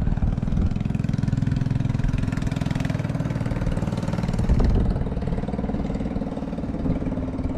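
Motorcycle engine running steadily with an even pulse, dropping a little in level after about five seconds.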